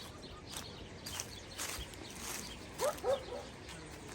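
A dog gives two short yelps, close together, about three seconds in, over short rustling sounds at intervals.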